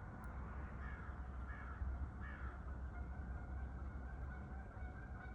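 A bird calling a few short times over a steady outdoor background with a low rumble.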